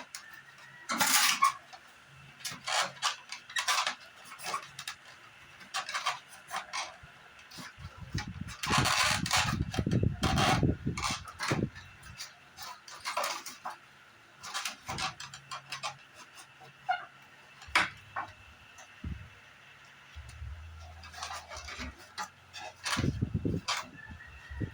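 Irregular clicks, knocks and rustling of air-conditioner parts being handled and fitted during reassembly of the evaporator section, with a few heavier thuds.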